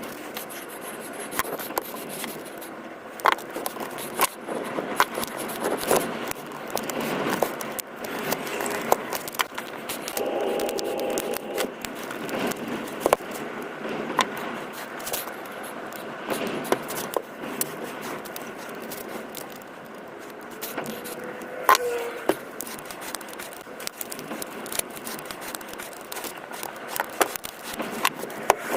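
Hands working on a Makita battery pack with small tools: frequent sharp clicks and taps with scraping and rustling of parts in between.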